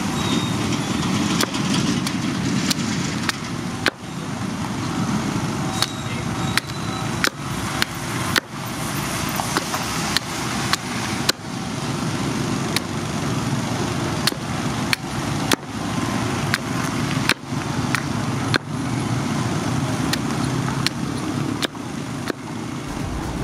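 Small hatchet chopping the end of a wooden stake to a point on a wooden chopping block: sharp chops about once a second, over a steady low background rumble.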